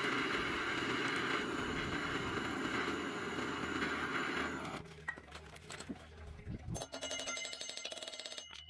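Hand-held butane torch burning with a steady hiss as it heats the brake disc bolts on a motorcycle's rear wheel. The flame goes out a little past halfway, and light clicks and clinks of metal tools follow.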